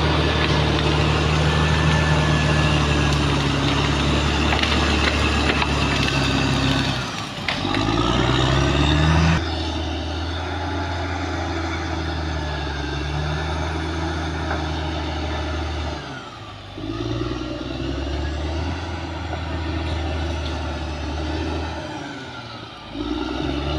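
Caterpillar D6R XL bulldozer's diesel engine working under load. Its pitch climbs after a brief dip about seven seconds in, and drops briefly twice more near the middle and the end.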